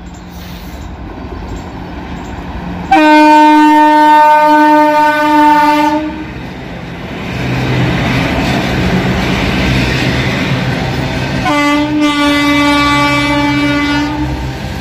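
Double-headed Indian Railways WAG-7 electric locomotives hauling a freight train past: two long horn blasts of about three seconds each, the first about three seconds in and the second near the end. Between and under them, the rising rumble and clatter of the locomotives and wagons on the rails.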